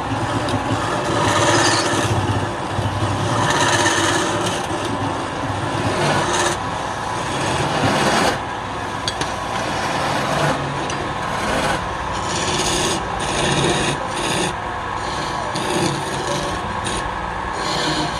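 Wood being worked on a spinning lathe: a rough, rasping scrape that swells and fades in repeated passes, turning into shorter, choppier strokes about halfway through.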